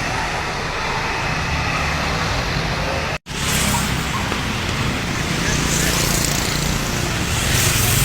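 Roadside traffic noise: a bus engine running with tyre and road noise, steady throughout, with a brief dropout to silence at a cut about three seconds in.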